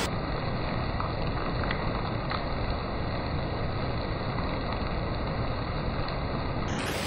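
Heavy rain pouring down steadily, an even hiss with a few faint drop ticks in the first seconds.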